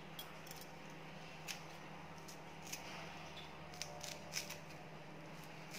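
Fresh coriander leaves being cut by hand over a pot: several faint, sharp snips at irregular intervals, over a low steady hum.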